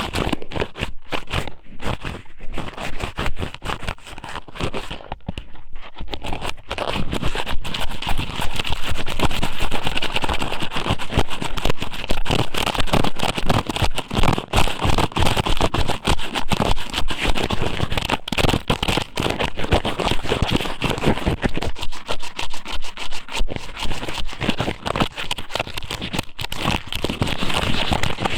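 Squid noodle strips (ika somen) pushed and rubbed inside a binaural microphone's ear: dense, continuous close-up crackling and scraping, louder from about eight seconds in.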